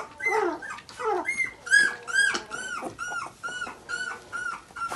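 Newborn puppy squealing and whining in a rapid run of short high-pitched cries, about three a second, each rising and falling, while it is being bottle-fed.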